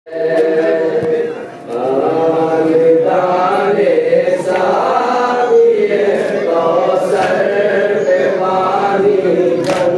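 Men's voices chanting a nauha, a Shia Muharram lament, in a slow held melody, with a brief dip in loudness about a second and a half in.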